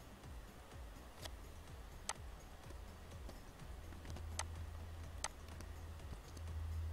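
Four sharp single clicks, spaced about one to two seconds apart, from a computer mouse and keyboard being used, over a low steady hum.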